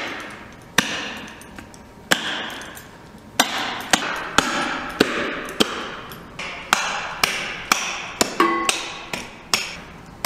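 Repeated sharp chopping blows through a whitetail deer's backbone, splitting the carcass in half. There are about a dozen and a half strikes, each with a short ring, spaced about a second apart at first and then coming faster.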